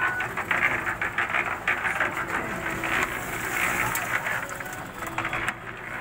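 GEPCO mini concrete mixer running, its turning drum keeping up a steady dense clatter of the mix tumbling inside, easing off a little near the end.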